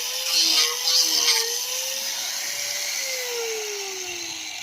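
Small handheld electric sanding tool running at high speed, with bursts of scratchy grinding as it sands a wood carving in the first second and a half. About three seconds in, its pitch falls steadily as the motor winds down.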